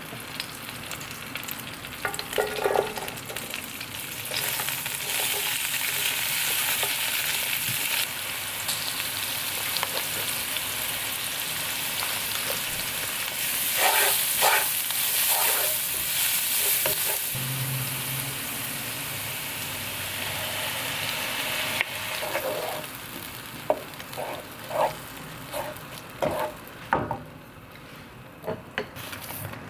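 Food sizzling as it fries in hot oil in a pan: a steady hiss that is loudest in the middle and dies down after about twenty seconds. Knocks and scrapes of a utensil against the pan come near the start, in the middle and several times near the end.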